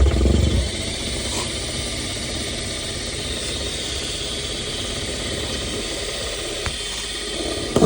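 Electric drill running steadily, drilling out a hole in the car body's metal, with a heavier bump as it starts and again just before it stops.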